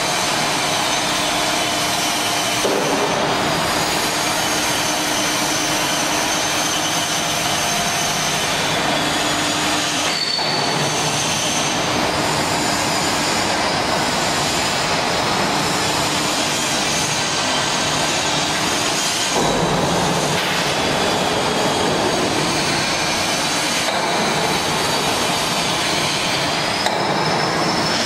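LZ-1500 open dual-shaft mixer running on test, its anchor agitator and high-speed disperser motors giving a steady, loud machine noise with several high whining tones. The whines change pitch abruptly a few times.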